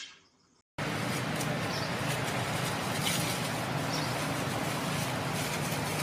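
After a brief silence, a steady outdoor din with a low hum, typical of distant traffic, starts suddenly less than a second in. A few faint, short high chirps are heard over it.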